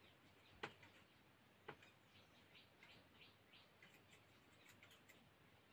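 Near silence: room tone with two faint clicks about a second apart, then a few fainter ticks.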